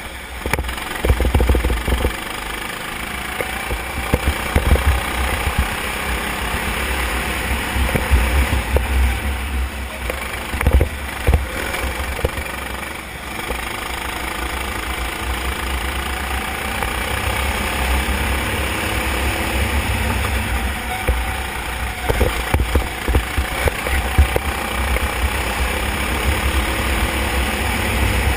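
Go-kart engine running at racing speed, heard from an onboard camera, its note rising and falling as the kart accelerates out of corners and lifts into them. Heavy wind rumble on the microphone, with several sharp gusts or knocks.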